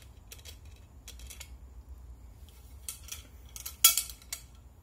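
Light metallic clicks and clinks of a cleaning rod and its mop end being handled at a shotgun barrel's muzzle as the mop is taken off. A cluster of sharper metal clacks comes near the end, the loudest about four seconds in, as the barrels are laid down.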